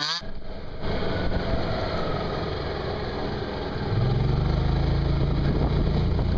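An engine running. A steady low hum sets in about four seconds in and is louder from there on.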